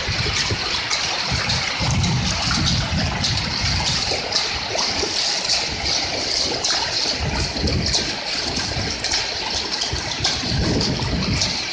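Floodwater from an overtopped pond flowing fast, a steady rushing hiss. Low wind rumble on the microphone comes and goes.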